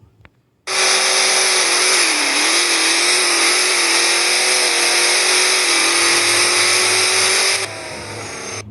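Drag race cars running a quarter-mile pass at full throttle, a loud, steady engine roar that starts abruptly, holds for about seven seconds and then drops away sharply.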